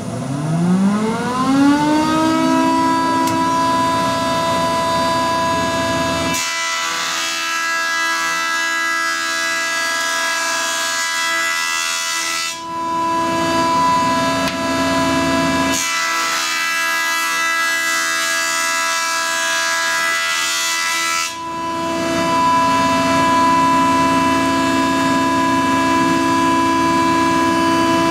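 SCM F410 surface planer (jointer) with its cutterhead whine still rising as it comes up to speed, then holding a steady high whine. Twice a board is fed across the cutterhead, each pass a rough planing noise lasting about six seconds, after which the machine goes back to its free-running whine.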